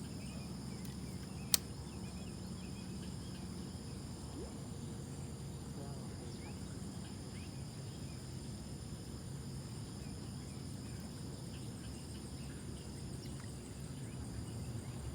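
Outdoor ambience with a steady high drone of insects over a low rumble. One sharp click about a second and a half in.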